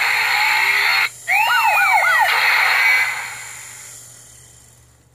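Electronic sound effect from a Kamen Rider Drive DX Drive Driver toy belt playing the police-themed Justice Hunter shift car's sound. A loud rushing blast breaks off briefly about a second in, then three quick siren wails sound over the rush, which then fades away.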